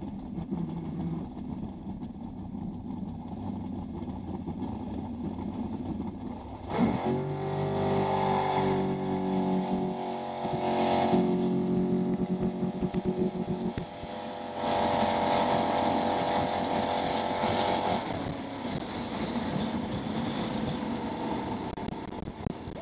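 Big-block Ford V8 of a jet boat running low and steady, then opened up about seven seconds in: its pitch jumps and it runs on at a steady higher speed, eased off and opened again a couple of times later.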